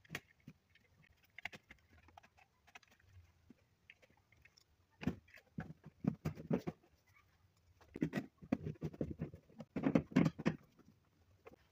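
Screwdriver driving the fixing screws of a plastic socket faceplate into its back box: light clicks, then three spells of rapid scratchy clicking, loudest near the end.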